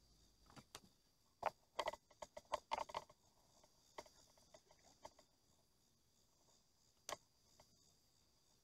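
Faint scattered clicks and light knocks, a quick run of them in the first few seconds and a single sharper click near the end.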